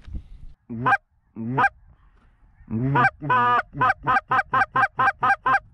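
Goose call blown by mouth: two single honks about a second in, then after a short pause a quick, even run of about a dozen clucks, some four a second.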